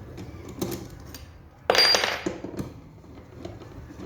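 Metal clinks of a spanner and steel bolts being worked on a car starter motor, with one louder metallic clatter and a short ring a little under two seconds in.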